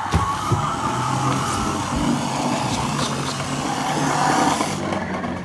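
Toy Ford F-150 Raptor's electronic engine sound effect playing from its small built-in speaker: a recorded truck engine running and revving, steady for about five seconds and easing off near the end.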